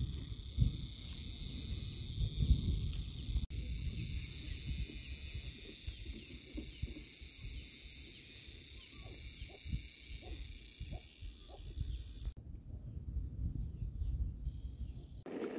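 A steady chorus of insects shrilling, over a low rumble. The chorus shifts at two edits, about three and a half seconds in and again near the end, where it turns fainter.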